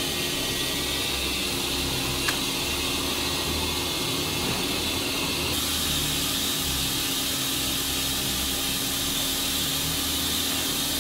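Steady industrial machinery noise of a steel rolling mill: an even hiss over a low hum, with a single click about two seconds in. The hiss grows brighter about halfway through.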